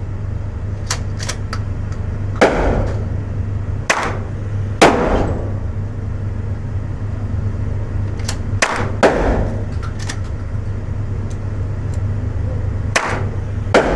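Single gunshots at a shooting range, a few seconds apart. Some are loud with a short ringing tail and others are fainter, sharper cracks, all over a steady low hum.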